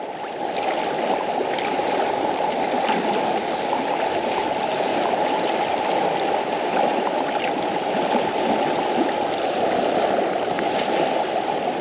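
Fast river current rushing and gurgling steadily close to the microphone, with a few faint ticks.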